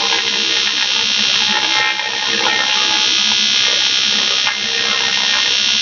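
AC TIG welding arc from an Eastwood TIG 200 AC/DC on thick 6061 aluminum, a loud, steady buzz that dips briefly twice.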